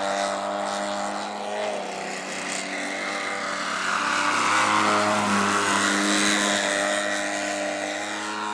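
Motor and propeller of an Extreme Flight Extra radio-controlled aerobatic plane, buzzing steadily with a strong pitched note. The sound swells and rushes louder about four seconds in as the plane passes close in a low nose-high hover, then eases as it climbs away.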